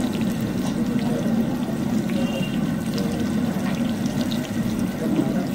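Batter-coated bhajias deep-frying in a large kadai of hot oil, a steady bubbling sizzle.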